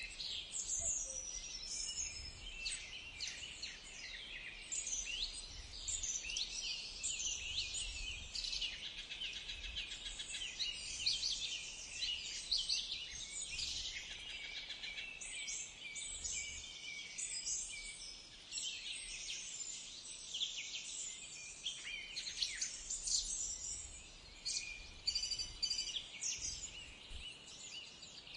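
Many birds chirping and singing together, a steady tangle of quick, high-pitched overlapping calls.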